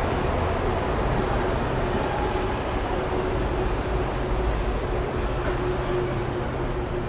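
Subway train standing at an underground platform: a steady rumble and hum with a held low tone.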